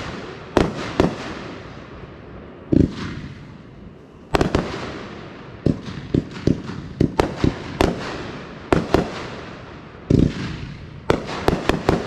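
A 16-shot consumer firework cake firing: heavy thuds of tubes launching mixed with many sharp bangs of shells bursting, in irregular clusters and close pairs throughout.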